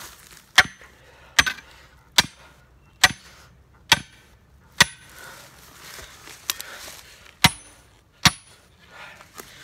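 Hammer blows on the top of a steel T-post, driving it into rocky ground: a steady run of sharp metallic strikes a little more than one a second, with a short pause about five seconds in, some blows leaving a brief ring.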